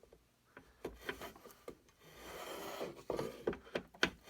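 Hand plane shaving the wooden comb of a rifle stock: a few light knocks at first, then from about halfway in a stretch of steady scraping strokes.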